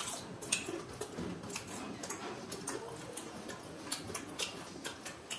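Close-up eating sounds: irregular small wet clicks and smacks of chewing fried chicken-skin pakoras, with hands working watery soaked rice.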